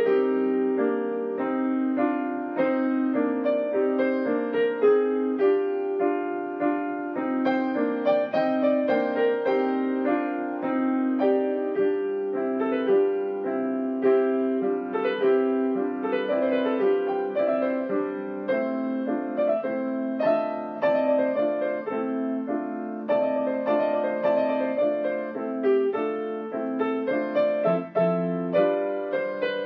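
Improvised solo piano music: a steady flow of notes over held chords, mostly in the middle of the keyboard.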